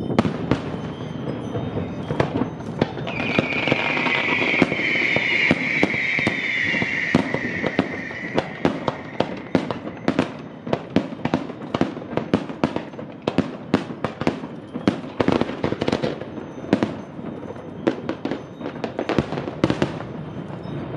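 Aerial fireworks display: an irregular string of sharp bangs and cracks from shells bursting overhead. About three seconds in, a high whistle falls slightly in pitch and lasts about five seconds.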